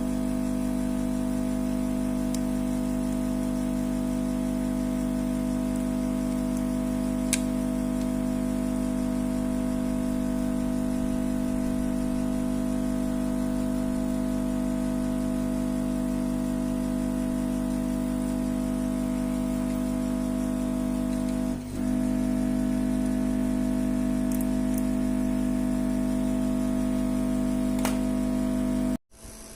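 A steady hum of several held tones, unchanging throughout, with a brief dip about two-thirds of the way in and a few faint clicks; it cuts off abruptly just before the end.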